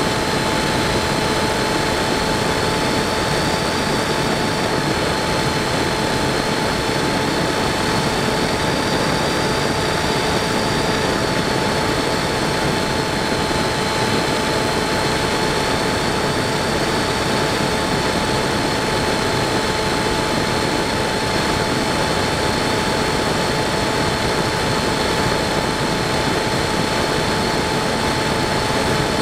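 Onboard sound of a Multiplex Easystar 2 RC model plane in flight. Its electric pusher motor and propeller run at a steady pitch, with a high whine that drifts slightly, under a constant rush of wind.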